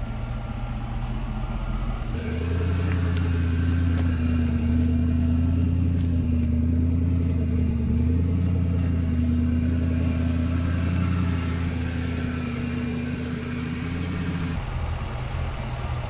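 A vehicle engine running steadily as a low hum. It gets louder, with a steady tone added, about two seconds in, and drops back abruptly near the end.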